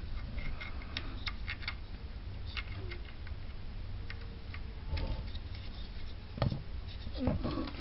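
A hammer tapping lightly on a tool to drive a washing machine's new motor coupling half onto its shaft: a scatter of small, irregular ticks with a few heavier knocks near the end.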